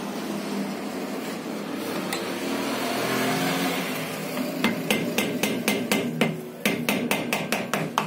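A screwdriver tip striking repeatedly into an alternator's plastic pulley cap to break it open: a run of about a dozen sharp taps, roughly four a second, starting about halfway through.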